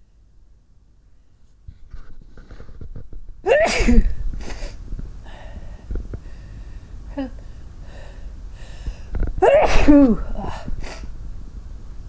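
A person sneezing twice, loudly: the first sneeze comes about three and a half seconds in and the second near nine and a half seconds. Each has a voiced part that falls in pitch, and fainter short sounds come between them. The sneezes come from a nose that is very sensitive today.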